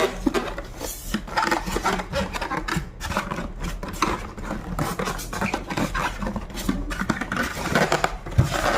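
Irregular rubbing and scraping with small knocks, from packaging and plastic being handled around an electric sewing machine as it is unpacked.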